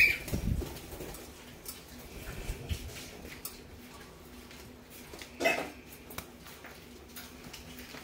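A cockatiel gives short chirps at the start and about five and a half seconds in, over light clicks and low thumps from handling at a wire cage.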